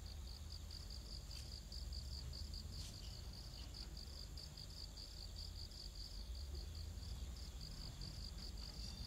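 Insects chirping outdoors: a steady, even high-pitched chirp at about four pulses a second over a faint continuous high buzz, with a low rumble beneath.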